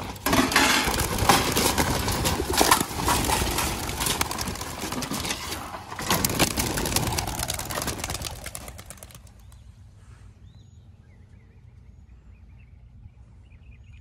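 A flock of about thirty-nine young racing pigeons taking off together: a dense clatter of flapping wings and many sharp wing claps, fading away over the next nine seconds or so as the flock flies off.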